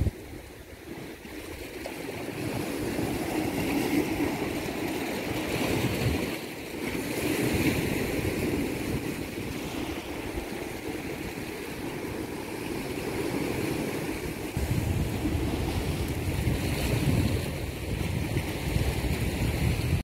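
Sea waves washing and swelling against a rocky shoreline in a steady surge and ebb, with wind rumbling on the microphone that grows heavier about two-thirds of the way in.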